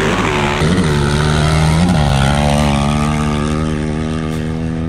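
Two sport ATV engines running hard at full throttle as they race off the line in a dirt drag race. The pitch swoops up and down twice in the first couple of seconds, then holds steady at high revs.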